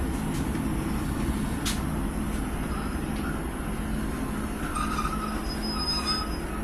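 Class 150 Sprinter diesel multiple unit running along the line, heard from inside the passenger saloon: a steady underfloor engine hum and wheel rumble, with a sharp click about two seconds in and faint high squeals around five seconds in.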